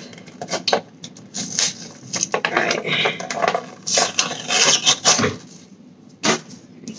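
Cardboard model box being handled and worked open by hand: irregular rubbing, scraping and crinkling of cardboard with scattered small clicks, and one sharp knock about six seconds in.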